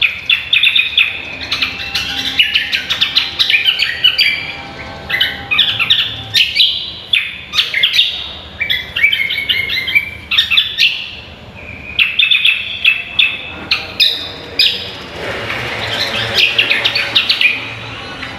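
Greater green leafbird (cucak kombo) singing vigorously: quick phrases of chattering whistles and trills, broken by short pauses.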